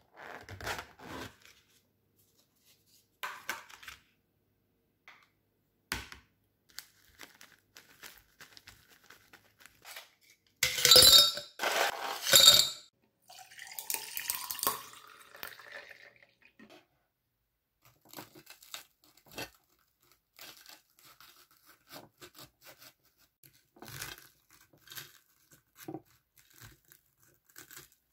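Light handling clicks, then ice cubes clinking loudly as they drop into a tall drinking glass, followed by a drink poured in, its pitch rising as the glass fills. After that, a knife and fork cutting through a crisp-breaded tonkatsu, with small crackling crunches and taps on the plate.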